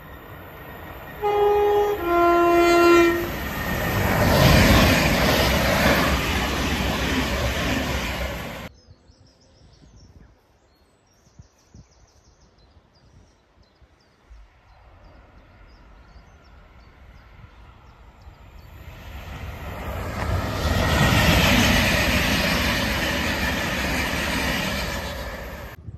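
Two-tone train horn, a higher note then a lower one, about a second each, followed by a train running past with loud wheel and air noise that cuts off suddenly. Later a second train, an electric multiple unit, grows louder as it runs through.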